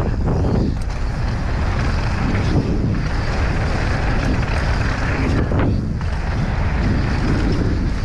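Wind buffeting the microphone over the rumble of mountain-bike tyres rolling fast on a dry dirt trail, with a couple of faint clicks.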